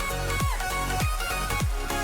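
Electronic background music with a steady kick-drum beat, about two beats a second, and sustained synth notes.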